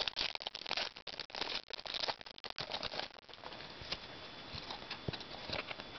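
Trading cards being handled and flipped through: dense paper rustling and card clicks for about three seconds, then quieter, scattered ticks.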